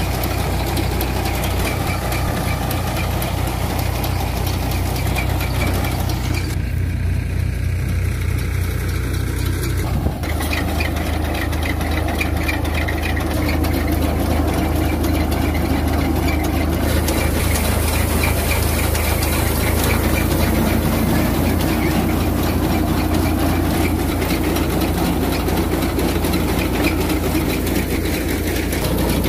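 Tractor engine running steadily while driving a Dashmesh paddy thresher, the thresher's drum and fan turning as straw is threshed and blown out.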